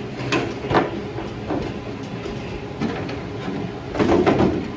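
Knocks and scraping of a loose steel car fender, from a 1961 Chevrolet Impala, being handled and flipped over: a few sharp clunks in the first second, then a louder scraping clatter about four seconds in.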